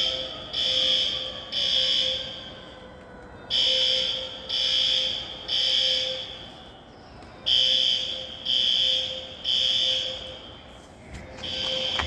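Building fire alarm horns sounding the three-pulse evacuation pattern: three loud, high beeps, then a pause, repeating about every four seconds. During the first few seconds a siren winds down, falling slowly in pitch as it fades out.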